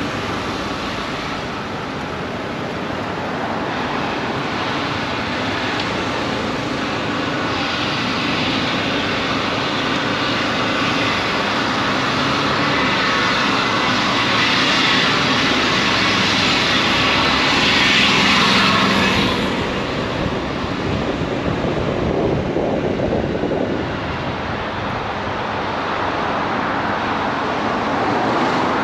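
Motorcycle on the move in traffic: wind rushing over the on-board microphone with the engine running underneath. The rush builds to its loudest about two-thirds through, then drops off suddenly.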